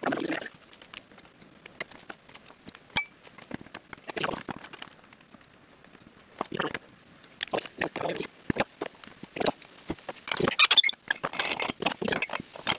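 Steel mount bar and rubber mower tire working against each other on a manual tire changer as the tire bead is levered onto the rim: scattered knocks and short scraping bursts, busiest about ten seconds in.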